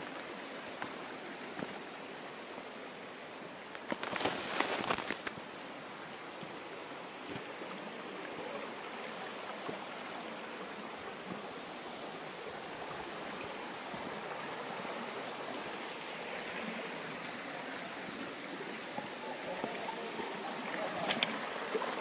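A shallow rocky stream running steadily over stones. About four seconds in there is a brief, louder burst of scuffing clicks.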